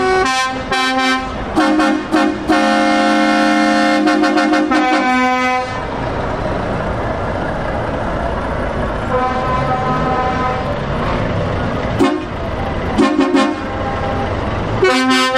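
Lorry air horns sounding from trucks passing in a convoy, over the running of heavy diesel engines. There are several short toots, a long blast of about three seconds, and more short toots near the end.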